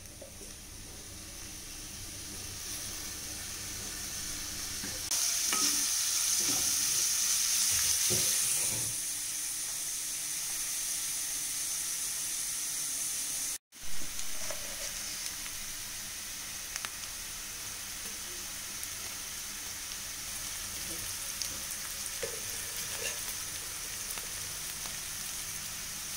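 Chopped onions and green chillies frying in hot oil, a steady sizzle that grows louder over the first several seconds. About fourteen seconds in the sound briefly cuts out, with a sudden sharp spike, before the sizzle settles to an even hiss with small pops.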